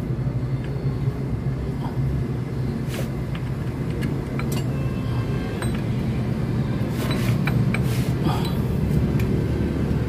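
Scattered light metal clinks of gears and tools being handled as the timing gear train is fitted to a Kia Pregio engine, over a steady low rumble.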